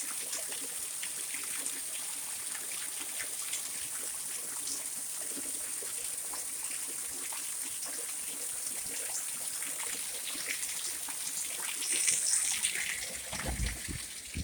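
Steady rain pattering and hissing, with many small drops ticking. A few low thumps near the end.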